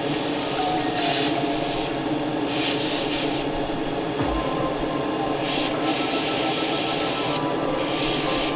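Airbrush spraying paint in short trigger pulls: repeated bursts of hiss, each about a second long, over a steady hum.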